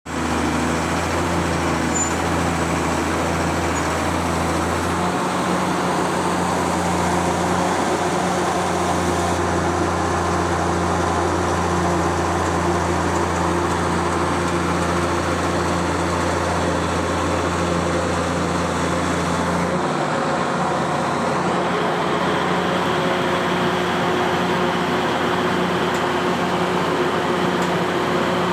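A truck engine running steadily with a low, even drone, over general road traffic noise. The deepest part of the hum drops away about twenty seconds in while the engine keeps running.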